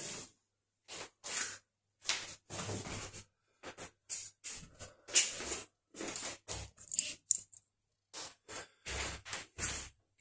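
A camera being handled and moved by hand: a string of short, irregular rubbing, scraping and knocking noises close to the microphone, with brief gaps between them.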